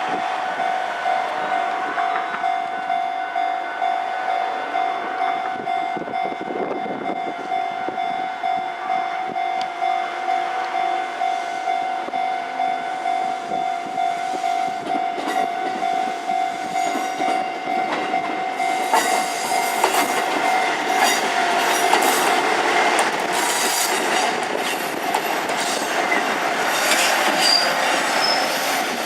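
Level crossing warning bell ringing in a steady pulsing tone. About two-thirds of the way in, a two-car KiHa 11 diesel railcar arrives and passes over the crossing, with the clatter of its wheels over the rail joints.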